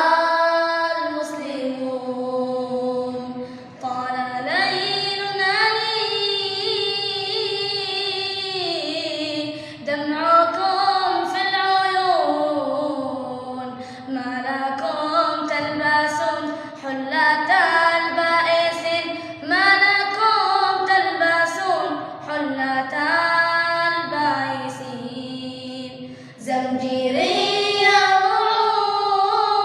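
A high solo voice singing an Arabic nasheed, holding long ornamented notes that slide and waver between pitches, with short pauses for breath.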